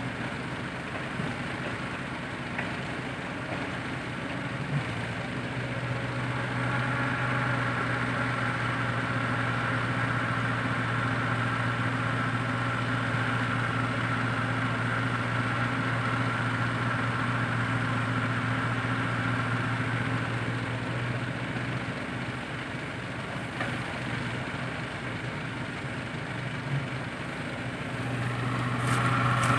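Heavy diesel engine running steadily with a low hum. It gets somewhat louder about six seconds in, eases a little after twenty seconds, and picks up again near the end.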